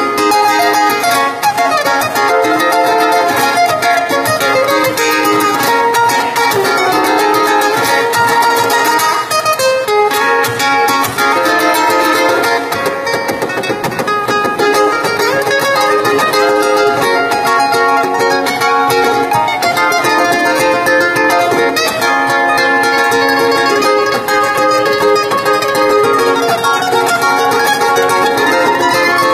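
Two ukuleles played together in an instrumental duet, plucked and strummed without pause.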